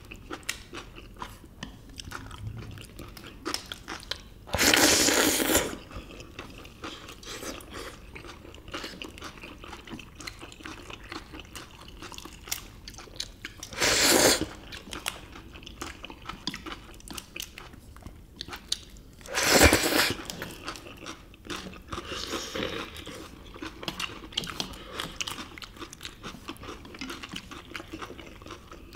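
Close-miked eating sounds: steady chewing and crunching with small clicks of chopsticks and food. It is broken by three loud, roughly one-second slurps of noodles, about 5, 14 and 20 seconds in.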